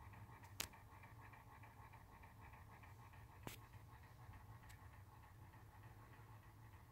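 Near silence: faint steady low room hum, with one short click about half a second in and another about three seconds later.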